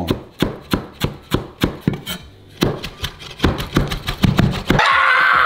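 Chef's knife chopping fresh dill on a wooden cutting board: quick, even chops, about five a second, with a short pause about two seconds in. Music comes in near the end.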